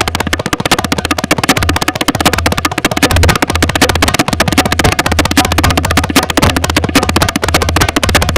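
Tabla playing a rela, a fast drum-roll composition meant to evoke a train: a rapid, continuous stream of crisp strokes on the dayan, with the bayan's deep bass ringing steadily underneath.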